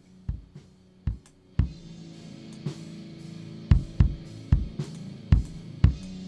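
Playback of a kick drum track from a demo recorded in a rehearsal room on budget microphones: a loose, irregular pattern of bass drum hits, thin and weedy-sounding, with the snare and cymbals of the rest of the kit faint in the background and a low steady tone underneath from about a second and a half in.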